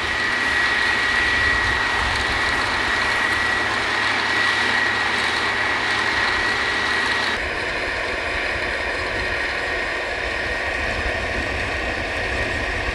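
Drilling rig engines and machinery running steadily, with a thin high whine over the noise; the sound shifts abruptly about seven seconds in.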